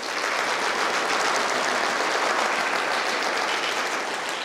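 Audience applauding, a steady spell of many hands clapping that eases off slightly near the end.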